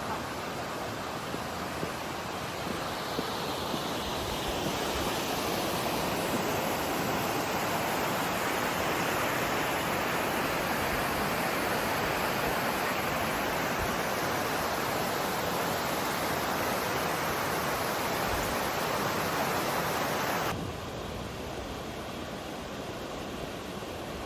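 Mountain river water rushing over rocks in rapids, a steady dense rush. It grows louder a few seconds in, then drops suddenly to a softer, duller rush near the end.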